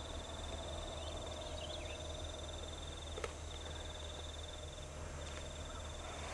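An insect trilling high in repeated bouts of about a second and a half with short pauses between, over a low steady hum. A few faint bird chirps come about a second and a half in, and a single click a little after three seconds.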